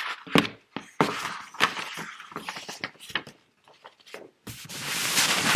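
A picture book being handled and opened: paper rustling with light knocks, then a longer rustle about four and a half seconds in as a page is turned.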